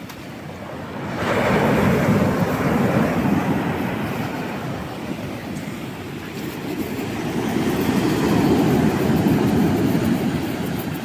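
Storm waves on the Black Sea breaking on the shore: surf noise that surges up about a second and a half in, eases off, and surges again in the second half.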